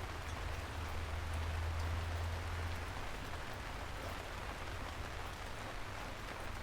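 Steady rain falling, an even hiss of drops with no pauses. A low rumble under it swells about a second in and eases off after about three seconds.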